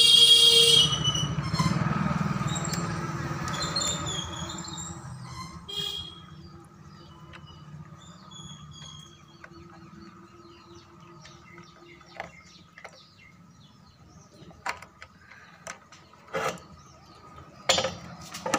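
A horn toots briefly at the very start, then a passing motor vehicle rumbles and fades away over a few seconds, with a few bird chirps. Later come several sharp clicks and knocks from hands handling the amplifier's wiring, the loudest near the end.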